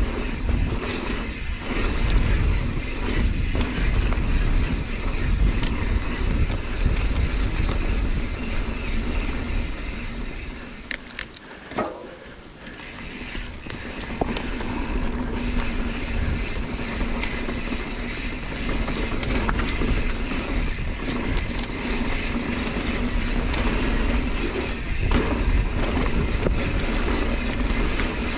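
Mountain bike descending a dirt forest trail: a steady rush of wind and tyre noise on the camera's microphone, dipping quieter for a couple of seconds about eleven seconds in.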